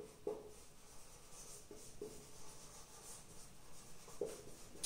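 Marker pen writing on a whiteboard: faint squeaks and scratches of the tip in a few short strokes.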